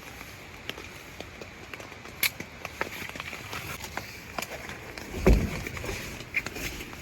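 Cold rain dripping and pattering on a tarp in irregular small ticks over the steady rush of a mountain stream, with one dull thump about five seconds in.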